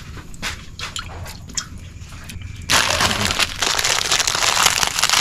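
A few light clinks of a metal spoon in a pan. About two and a half seconds in, a loud, dense crackling starts abruptly close up and carries on: cooked crab shells being broken apart by hand.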